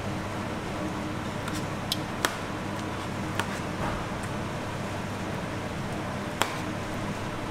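Metal tongs clicking sharply against a metal baking tray about four times while turning slabs of sauced beef, over a steady machine hum.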